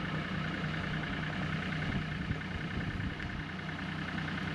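Bobcat E35 mini excavator's diesel engine idling steadily.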